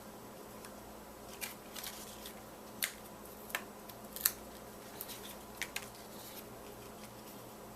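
Paper-crafting handling noise: a scattered series of short, sharp crackles and clicks of paper and small tools on a craft desk, about a dozen, starting about a second and a half in and stopping after about six seconds.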